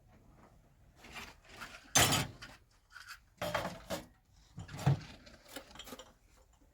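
Irregular knocks, scrapes and clinks of hard objects being moved, the loudest about two seconds in and another just before five seconds.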